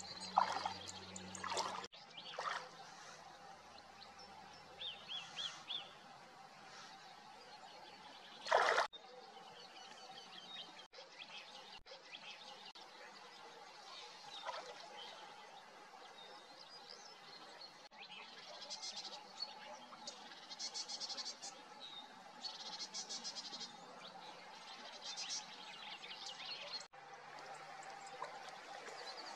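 Small birds chirping and calling in short, repeated high phrases over a faint steady hum, with one short loud noise about nine seconds in. The background changes abruptly several times.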